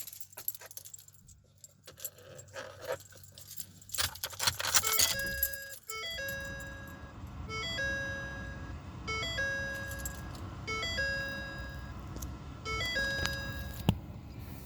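Keys jangling, then the 2015 Ford F-250's dashboard warning chime repeats about every second and a half over a low steady rumble from the truck.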